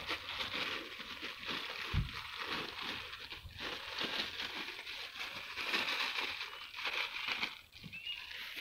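Dense undergrowth of leaves, grass and stems rustling and crackling as people push through it on foot, with a dull thump about two seconds in.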